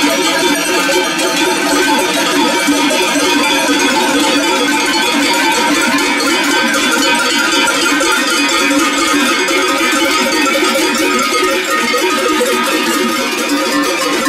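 Many cowbells ringing together in a steady jangle as a herd of cattle walks along.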